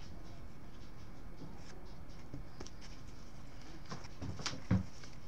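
Paper towel rustling as gloved hands fold it up off a paper plate, with small taps and one dull thump near the end.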